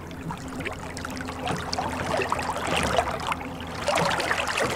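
Water splashing and trickling in irregular bursts.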